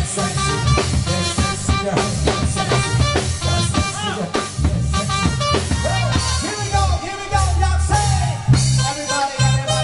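Live band playing upbeat dance music: electronic keyboard over a drum kit with a steady beat, with a melody line gliding above it.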